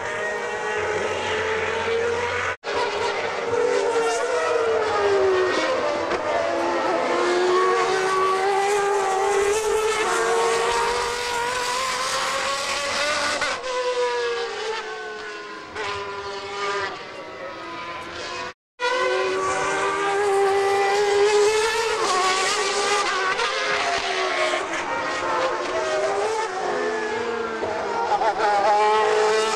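Formula One car engines running at high revs, the pitch falling in steps as the cars brake and downshift for the corner and climbing again as they accelerate away, over and over. Among them is the McLaren-Honda MP4/7A's 3.5-litre Honda V12. The sound cuts out abruptly twice, about two and a half seconds in and a little past the middle.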